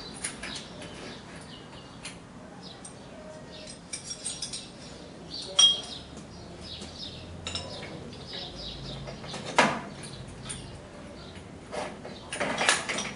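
Metal parts of a homemade helicopter's tail-rotor hub clinking and clicking against each other and the aluminium tail-boom tube as they are handled and unscrewed. Scattered light knocks, the sharpest about six and ten seconds in, and a run of clatter near the end.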